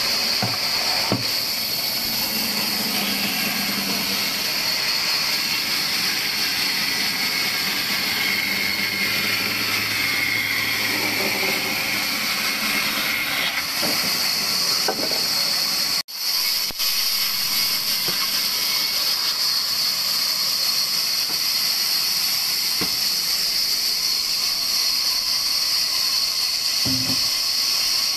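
Large vertical band saw running and sawing through dry logs: a steady, high hiss, broken by a momentary dropout a little past halfway.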